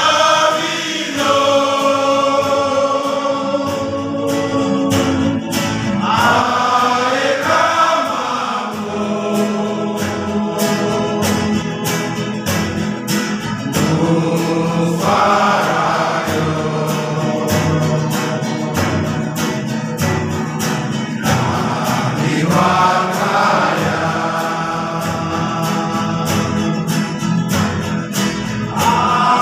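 A group of men and women singing together, choir-style, in long held notes. Each phrase lasts about seven to eight seconds before the next begins.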